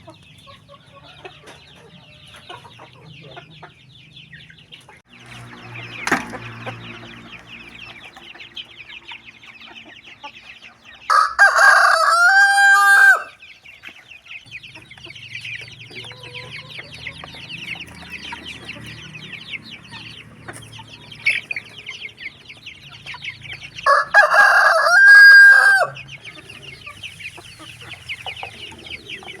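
A rooster crows twice, loud calls of about two seconds each, the first about a third of the way in and the second near the end. Between the crows, chickens cluck quietly over a steady high-pitched chirring.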